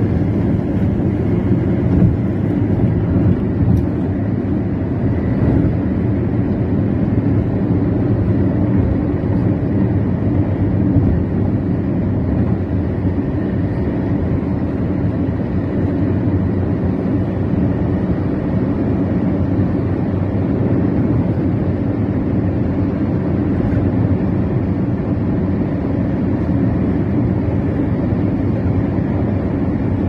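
Steady road and engine noise heard from inside a vehicle travelling at speed along a highway.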